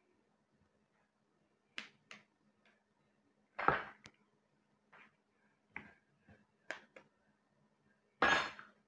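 Eggs being cracked and broken open over a plastic mixing bowl: a series of sharp taps and cracks, the loudest about four seconds in and again near the end.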